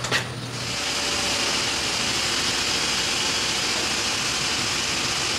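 Steady mechanical running noise, an even rushing hiss that comes up about half a second in and then holds level, typical of a fan or machine running.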